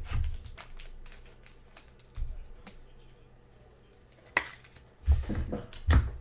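Trading cards being flipped through and handled, a run of light clicks and snaps, with a few dull thumps near the end.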